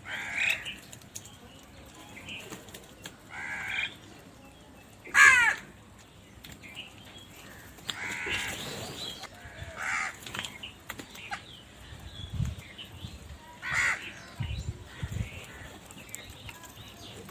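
Crows cawing, with about six separate harsh calls spaced a second or more apart; the loudest comes about five seconds in. A few low thuds come in the second half.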